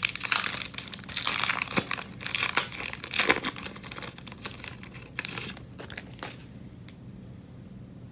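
Trading card pack wrapper being torn open and crinkled, a dense crackling that stops a little over six seconds in.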